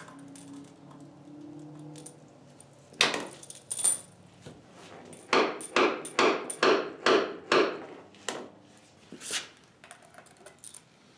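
Hand hammer striking a steel wedge anchor bolt, driving it through the anvil stand's foot plate into a hole drilled in the concrete floor. Two blows come first, then a quick run of about seven at roughly three a second, and one more blow near the end.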